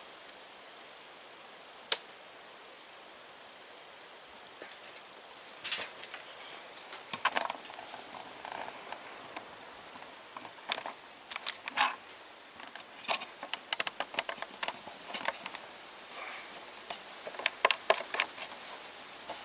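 Irregular clicks, knocks and rustling from hands working with small hard parts, with one sharp click about two seconds in and busier handling from about five seconds on.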